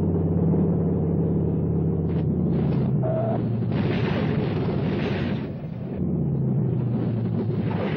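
Steady low drone of a propeller aircraft engine. About two seconds in it breaks into a few seconds of rough rumbling noise, then the drone returns about six seconds in.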